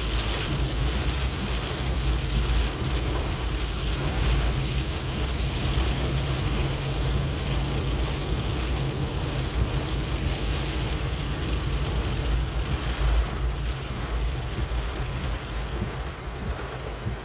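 Rain falling steadily, with wind rumbling on the microphone; the noise eases a little over the last few seconds.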